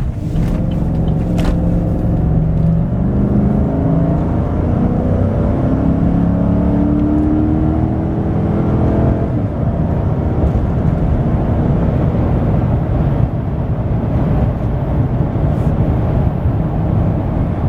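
Chevrolet Silverado 1500 pickup engine accelerating hard, its note climbing steadily for about nine seconds and then settling into steady road and wind noise at speed. The truck pulls strongly, with no sign of the cylinder 6 misfire that used to make it hesitate.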